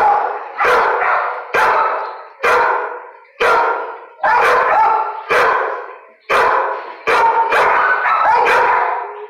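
A dog barking repeatedly, about ten loud barks roughly a second apart, each echoing off the hard walls of a shelter kennel.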